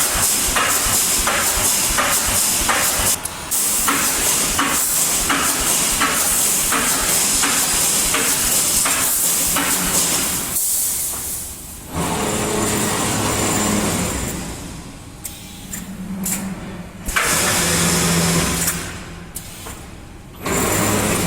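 Pneumatic rebar mesh welding machine running: a steady hiss of air with regular welding strokes about twice a second for roughly the first half. The strokes then stop, giving way to a lower machine hum and hiss that come and go.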